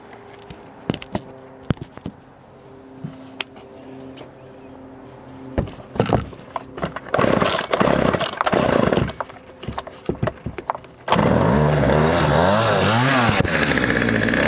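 McCulloch Mac 335 two-stroke chainsaw being pull-started: a few handling clicks, then several quick yanks on the recoil starter cord. About eleven seconds in the engine catches, is revved up and back down once, and settles to running.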